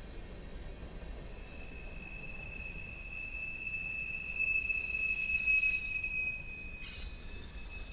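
Freight cars of a Union Pacific manifest train rolling past with a low rumble and a steady, high-pitched wheel squeal that starts about a second in and swells in the middle. A brief scraping burst comes near the end.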